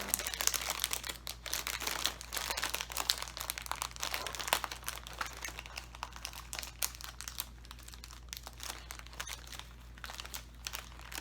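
Plastic snack wrapper of a granola packet crinkling and rustling as it is opened and handled, busiest in the first half and thinning toward the end.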